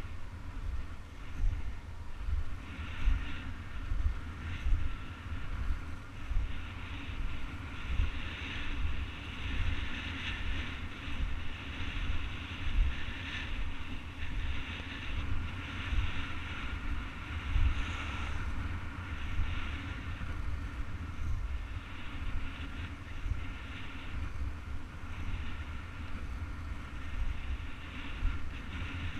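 Skate wheels rolling over street asphalt: a steady low rumble with a fluctuating hiss, and wind buffeting the microphone.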